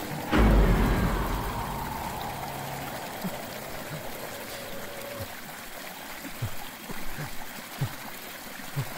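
Horror sound effect: a sudden deep hit about half a second in, then a tone that slides slowly down in pitch and fades out over about five seconds, over a soft trickling-water background with scattered faint low drips.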